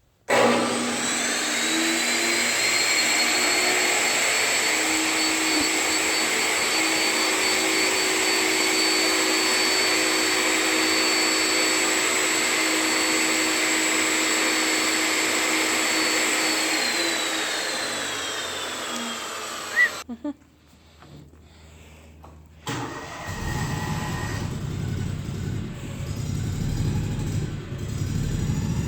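A loud electric motor spins up and runs steadily with a high whine and a hiss of air, then winds down after about seventeen seconds. After a short lull, a lower engine rumble starts near the end.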